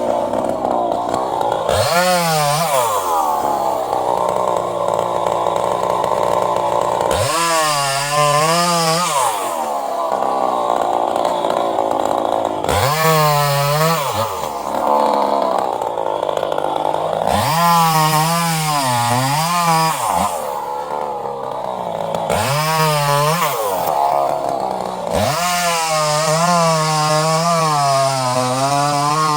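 Chainsaw cutting wood: the engine revs up about six times, each time holding a high, wavering pitch as the chain works through the wood, then dropping back toward idle between cuts.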